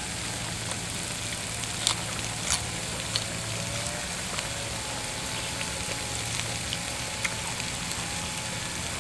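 Mukata pan of pork and broth on a charcoal stove sizzling steadily, with a few sharp clicks about two and two and a half seconds in.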